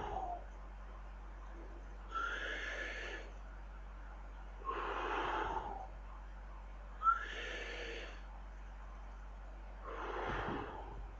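A person taking slow, deep breaths, each one clearly audible. There are four breaths of about a second each, with a pause of a second or more between them.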